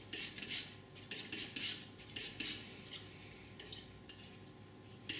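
Painting knife scraping and spreading oil paint on a palette while mixing a colour: a run of short scrapes, two or three a second, thinning out after about three seconds.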